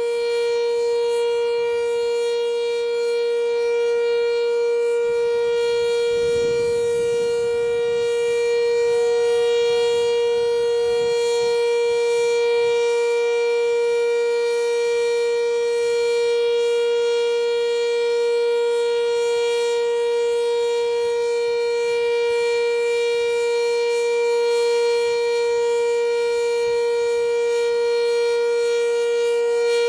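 Sentry 3V8 outdoor warning siren sounding a loud, steady single tone, held at one pitch throughout. A low rumble comes in briefly from about five seconds in.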